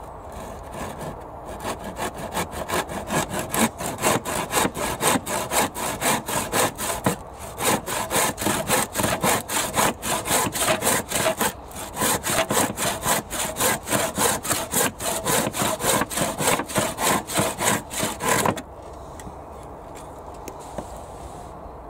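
Stanley handsaw cutting the end of a wooden fence picket by hand, in quick, even back-and-forth strokes with a couple of brief pauses. The sawing stops abruptly near the end as the cut is finished.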